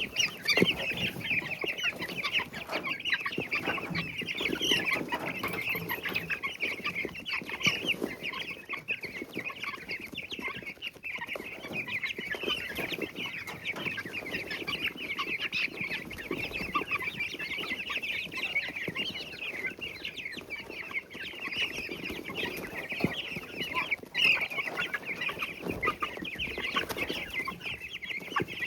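A flock of young chicks cheeping without pause, many short high peeps overlapping. Soft scratching and tapping in wood shavings runs underneath.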